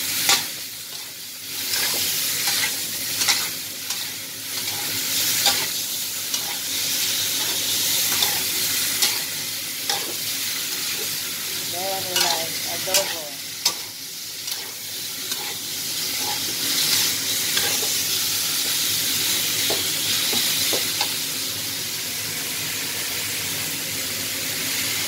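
Chunks of adobo meat sizzling as they fry in a nonstick pan, the steady sizzle broken now and then by the clink and scrape of a metal spoon and fork stirring against the pan. This is the browning stage, before any liquid goes in.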